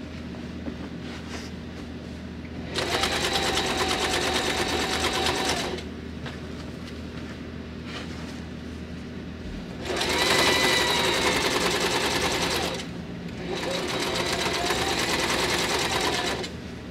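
Singer electric sewing machine stitching through heavy upholstery fabric in three runs of about three seconds each, stopping briefly between runs.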